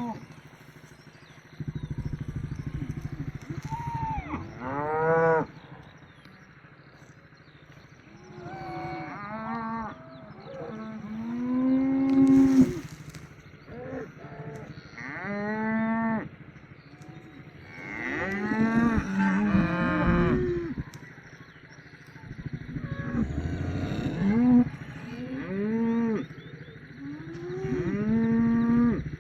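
Dairy cattle mooing repeatedly, about seven calls, some long and rising in pitch and some overlapping.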